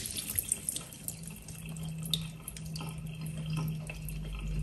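Water dripping and trickling off giant freshwater prawns being rinsed over a sink, with scattered light clicks and taps as the prawns are handled in a plastic tray, over a steady low hum.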